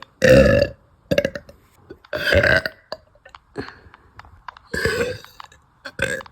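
A woman's soda burps: a string of separate burps about every one to two seconds, the first one the loudest and longest.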